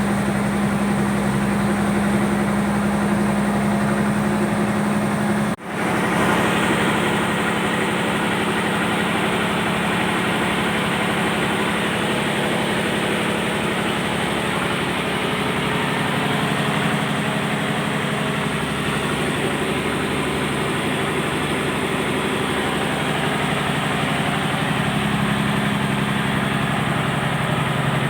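Fishing boat's engine running steadily, a constant hum. The sound drops out briefly about five and a half seconds in.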